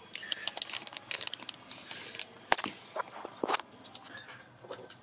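Scattered light clicks and knocks of handling and movement inside a small space, the sharpest about two and a half seconds in and again a second later.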